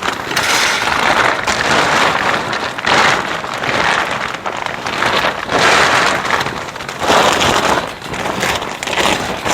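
Plastic greenhouse cover sheet rustling and crinkling as it is handled and pulled over the frame, in irregular swells about once a second.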